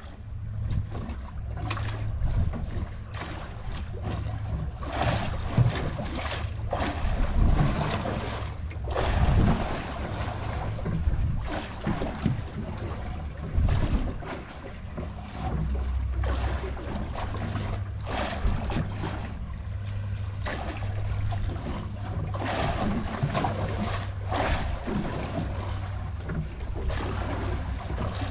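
Wind buffeting the microphone over the sea, with waves slapping and lapping against a small boat's hull in uneven gusts and splashes.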